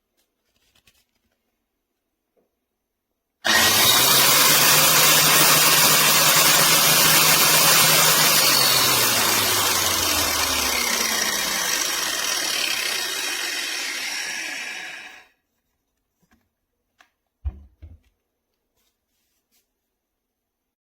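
Avid Power 4-1/2-inch electric angle grinder running in use, a loud grinding hiss that starts abruptly about three seconds in. Its motor hum drops in pitch over a few seconds as it works, then the sound cuts off sharply. A couple of short knocks follow.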